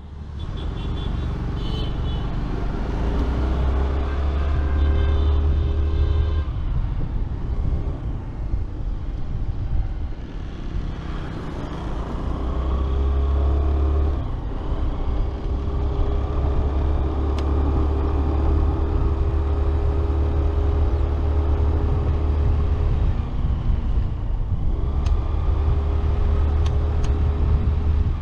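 Yamaha Street Rally scooter's single-cylinder engine running while riding along a road, its note shifting as the throttle opens and eases a few times. Heavy wind rumble on the microphone lies under it.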